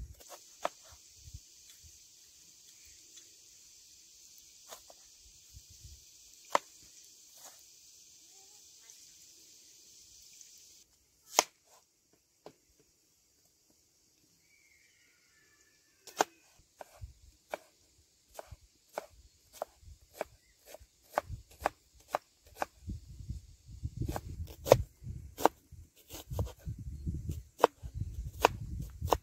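Kitchen knife chopping onion on a wooden cutting board: a few scattered strokes at first, then regular taps from just past the middle that grow quicker and heavier, with dull thumps of the blade hitting the board near the end. A steady high hiss runs through the first third and cuts off suddenly.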